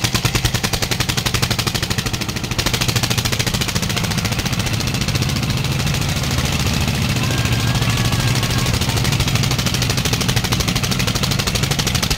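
Diesel engines of a 1971 Russian T-25 and a Mahindra 235 tractor running hard under full load as the two pull against each other, a loud, fast, even exhaust chatter. It gets louder about two and a half seconds in.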